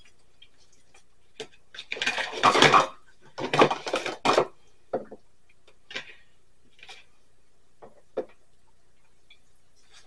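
Dishes and cutlery clattering and clinking on a countertop as food is served onto plates: two busy runs of clatter about two to four seconds in, then a few single light clicks.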